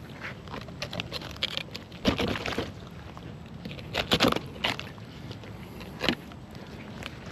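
Fillet knife cutting and scraping through a red snapper on a cutting board, with a few short scraping strokes about two, four and six seconds in.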